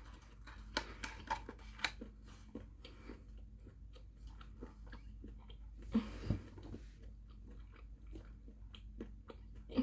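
A person chewing chocolate close to the microphone: irregular small crunchy clicks of biting and chewing, with one louder bump about six seconds in.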